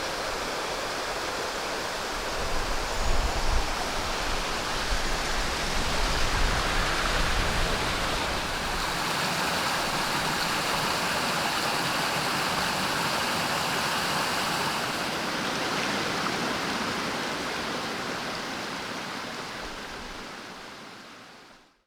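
Steady rush of running water, like a woodland stream, with a low rumble underneath for the first several seconds. It fades out near the end.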